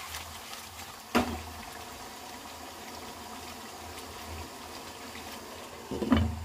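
Chicken curry simmering in a pot, a steady bubbling hiss, with a sharp knock about a second in. Near the end, the loudest sound: a glass pot lid set down on the pot with a clatter.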